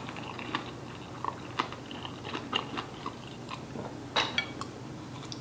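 A person chewing food close to the microphone, with irregular wet mouth smacks and small clicks; the sharpest smacks come about four seconds in.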